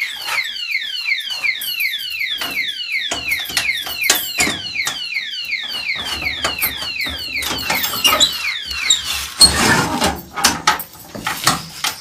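Swiftlet lure call played through a swiftlet house's speakers: a fast, evenly repeated chirp that falls in pitch, about three a second, fading out about nine seconds in. Then come metallic clicks and rattles of padlocks being unlocked on the door.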